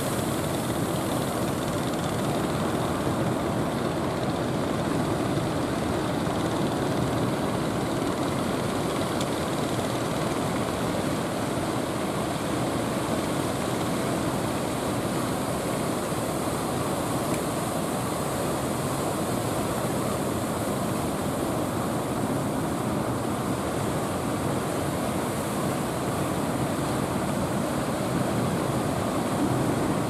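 Engines of several fishing boats running steadily at sea, blended with the wash of breaking surf.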